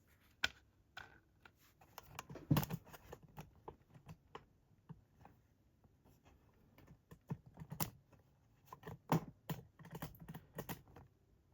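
Irregular small clicks and taps of metal lock parts being handled, with brass pins and the core of a Chubb padlock moved and set in place.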